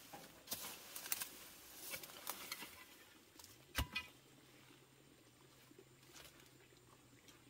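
A scatter of light taps and clicks, the sharpest one a little under four seconds in, followed by a faint steady low hum.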